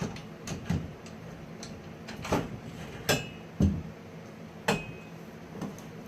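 Scattered metal clinks and knocks from bike parts and tools being handled during BMX assembly, about seven in all. Two of them, near the middle, ring briefly like struck metal.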